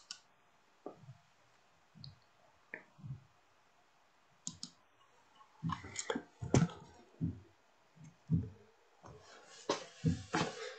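Handling noise heard over a video call: scattered soft clicks and knocks with dead gaps between them, a louder cluster about six seconds in, then rustling and bumps near the end as a man gets up from a chair and moves it.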